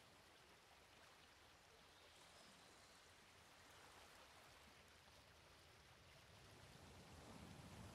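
Near silence: a faint, steady hiss with no distinct sounds, rising slightly near the end.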